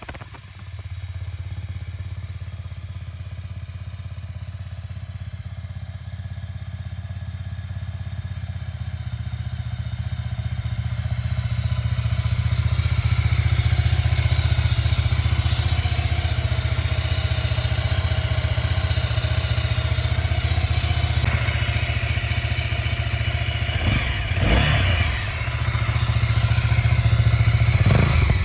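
Ducati Scrambler Full Throttle's air-cooled 803 cc L-twin running through its standard Termignoni exhaust after a cold start, with a steady low idle that grows louder over the first dozen seconds. About 24 seconds in the sound briefly surges and then dips.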